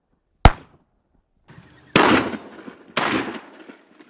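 Shotguns firing at flying ducks: a sharp, loud shot about half a second in, then two more shots about a second apart, each trailing off longer.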